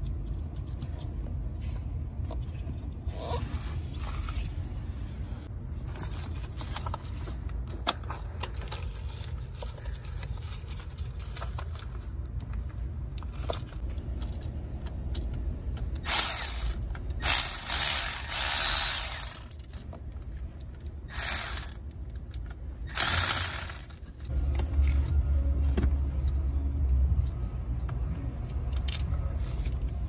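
Cordless electric ratchet running in several short bursts to back out fasteners, after a stretch of quieter clicking and scraping of hand work. A steady low hum runs underneath.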